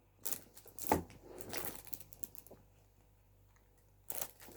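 Packs of thick plastic card top loaders being handled: a few sharp clacks and plastic rustling, a pause of about a second and a half, then more handling near the end.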